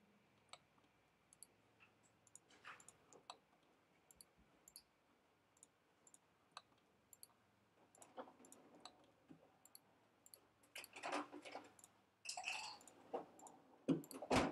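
Computer mouse clicking faintly: scattered single and double clicks. A few louder, longer noises come near the end.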